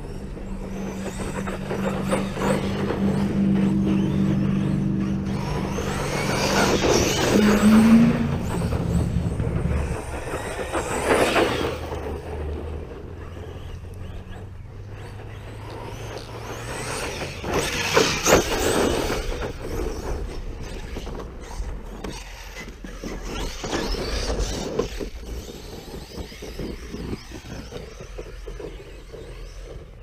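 Brushless 6S RC monster truck driving hard over loose dirt. Its motor whines up and down and its tyres throw dirt in several loud passes, the strongest about 7, 11 and 18 seconds in. A steady low drone sits under the first third.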